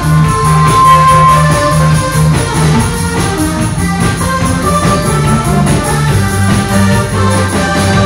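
Loud instrumental music with a moving bass line, and a held high note for a second or so near the start.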